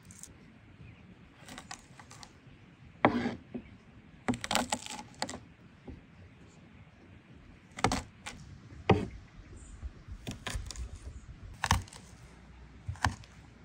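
Irregular clicks and knocks, about half a dozen short strikes and small clusters with quiet gaps between, like utensils and hard things being handled and set down during cooking.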